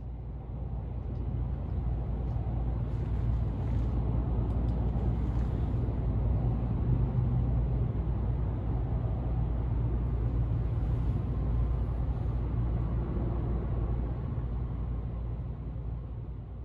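Steady low rumble of motor vehicles, like nearby road traffic or an idling vehicle, fading in over the first couple of seconds and then holding steady.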